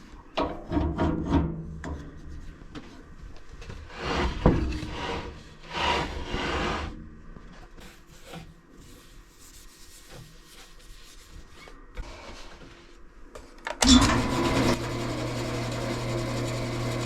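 Wood rubbing and scraping as the maple block is handled and set up on the bandsaw table. About fourteen seconds in, the Delta 28-206 14-inch bandsaw's motor switches on with a sudden loud start, then settles into a steady hum.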